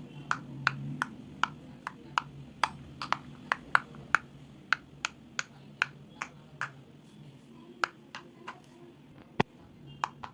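Silicone pop it fidget toy's bubbles being pressed one after another, each giving a short, sharp pop, about two to three pops a second.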